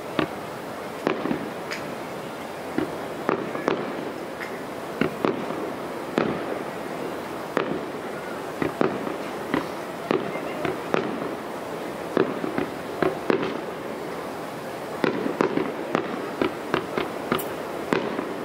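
Aerial fireworks shells bursting, a run of sharp bangs at irregular intervals that come thicker and faster over the last few seconds.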